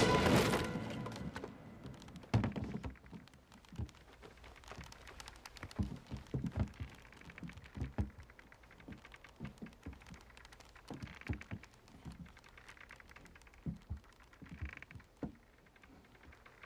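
A loud sound fading out at the very start, then irregular soft knocks and taps, one to three a second, over a low hush.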